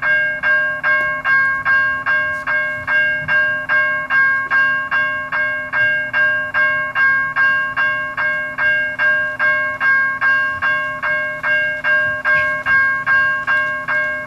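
Railroad crossing bell ringing steadily at about two and a half strikes a second, each strike ringing on until the next.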